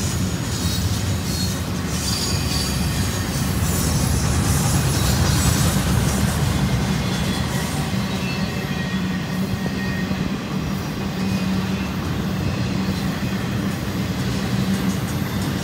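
Double-stack intermodal container cars of a Union Pacific freight train rolling past at a steady pace. It is a continuous low rumble and rattle of wheels on rail, with faint high-pitched wheel squeal over it.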